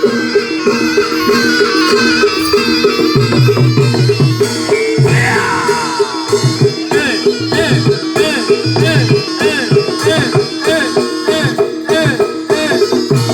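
Live Javanese barongan accompaniment: drums beating a brisk rhythm under fast, repeating metallophone notes, with a high wavering melody line over the first few seconds.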